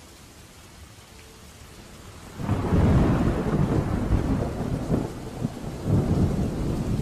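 Steady rain, then about two and a half seconds in a loud, deep rumble of thunder breaks in and rolls on, swelling and fading several times.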